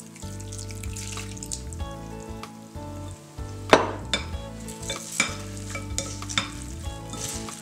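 Two wooden salad spoons tossing a freshly dressed shredded green-mango salad in a glass bowl: wet rustling and stirring, with several sharp clacks of wood against glass, the loudest a little under four seconds in.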